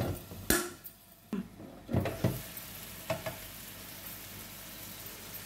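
Prawns sizzling in oil in a Happycall double-sided frying pan, with a few sharp knocks and clicks as the pan's hinged lid and handle clasp are worked open. The sizzle turns steady and stronger from about two seconds in, once the lid is up.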